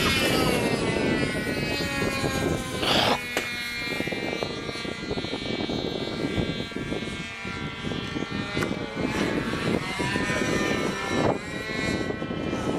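Radio-controlled model airplane flying past, its motor and propeller giving a high, pitched drone. The pitch falls in the first couple of seconds as the plane passes, holds steady, then rises again near the end as it comes back around.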